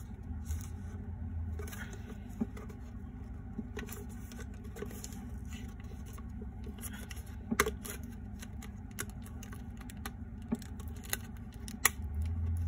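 Clear plastic wrap being picked at and peeled off a small cardboard toy box: scattered faint crinkles and scratches, with a few sharp clicks, the sharpest about halfway through and near the end.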